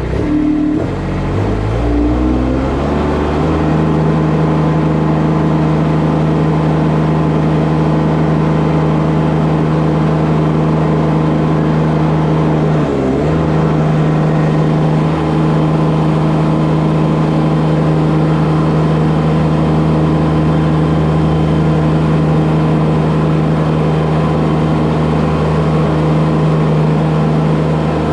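Kubota D1105 three-cylinder diesel of a Baumalight TRL620D mini track loader rising from low idle in the first few seconds, then running steadily at higher engine speed. Its note briefly sags and recovers about halfway through.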